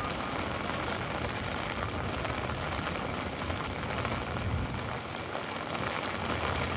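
Steady heavy rain, a dense hiss of drops pattering on an umbrella overhead, over a low rumble of city traffic on wet streets.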